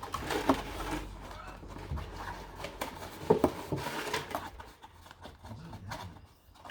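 Light handling sounds of colouring: paint pens tapping and scraping on plastic milk bottles, with a few small clicks and knocks, the clearest about half a second in and after three seconds.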